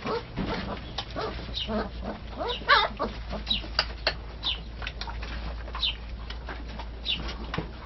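Sloughi puppies squeaking and whimpering as they nurse at their mother: repeated short, high squeaks that slide downward, and one louder, wavering whimper about three seconds in.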